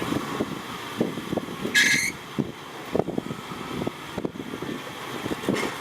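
Off-road Jeep's engine working unevenly as it crawls up over rock, with a brief high hiss about two seconds in.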